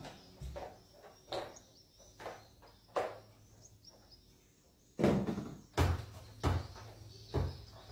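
Household cleaning clatter: scattered knocks as a spin mop is worked across a tiled floor and a wheeled speaker box is tilted and shifted. From about five seconds in comes a run of heavier thuds, about one every three quarters of a second.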